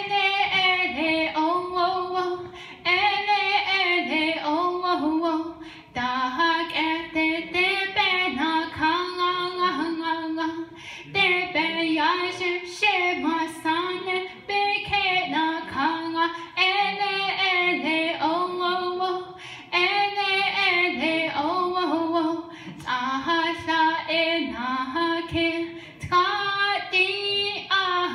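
A young female singer singing solo into a handheld microphone, in phrases of a few seconds with short breaks for breath between them; no instruments are heard.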